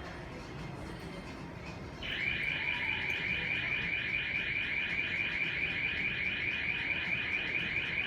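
Electronic anti-theft alarm starts about two seconds in, sounding a loud, rapidly warbling high tone that keeps going. It is set off by handling clothing.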